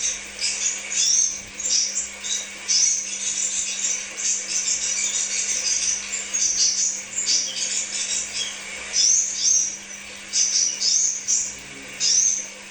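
Crimson sunbird singing: short bursts of rapid, high, thin chirps repeated every second or so, with a faint steady low hum beneath.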